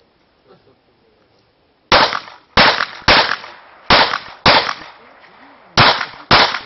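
Handgun fired seven times in quick succession, the shots coming in rough pairs about half a second apart, each with a short echo trailing off. The first shot comes about two seconds in.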